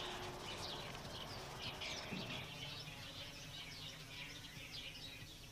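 Small birds chirping, many short high calls repeated quickly and faintly over a low background hiss.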